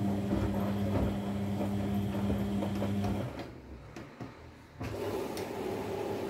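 Front-loading washing machine's drum motor running with a steady hum as the drum tumbles the wet, foamy laundry, with knocks and splashes from the clothes; the motor stops about three seconds in and starts again about five seconds in. This stop-and-start is the slow wash tumbling of the cycle.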